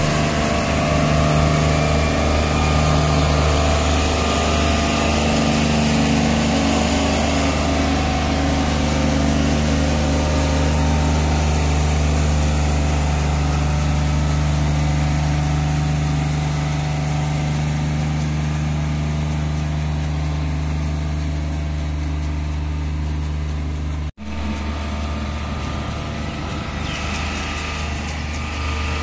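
Tractor diesel engine running steadily while pulling a rotary brush sweeper over the road surface. The sound cuts out for an instant near the end.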